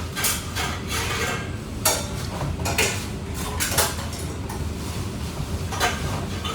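Kitchen utensils and dishes clattering: a handful of sharp, irregular knocks and clinks over a steady low hum.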